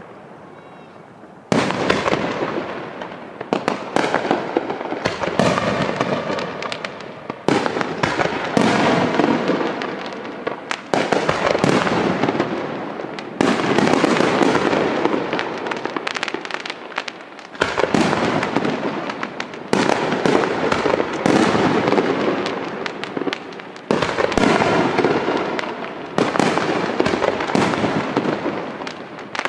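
Aerial firework shells bursting one after another, about every two seconds. Each sharp report is followed by dense crackling that dies away before the next burst.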